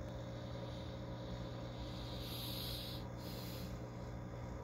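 Steady electrical hum of home aquarium equipment, with a short hiss a little past halfway.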